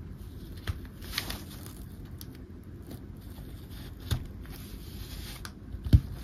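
Plastic toy parts being handled and pressed together: a few light clicks as the tube frame pieces fit, and a louder dull knock near the end as a foot piece goes on.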